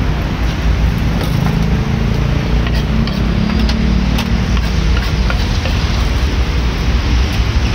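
Steady low rumble of outdoor background noise, with scattered light clicks and taps of a knife, a steel bowl and a wooden cutting board being handled.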